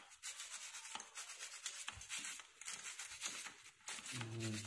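Scrubbing on a mountain bike's grimy rear sprocket cluster during cleaning with dish soap: a hissing rasp in quick, irregular strokes.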